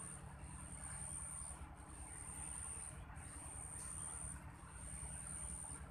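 Insect trilling in one steady high note, broken by short pauses every second or so, over a low steady rumble.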